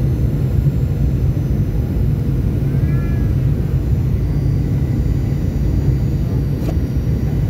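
Steady cabin noise inside a Boeing 737-800 beside the wing, from its CFM56-7B turbofan engine and the airflow, a deep, even drone during the descent to land.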